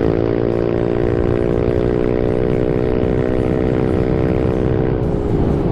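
Yamaha NMAX scooter's single-cylinder engine breathing through an aftermarket AHM 'Super Adem' exhaust, held at steady high revs under hard acceleration as the automatic transmission lets road speed climb. Right at the end the revs dip briefly and pick up again.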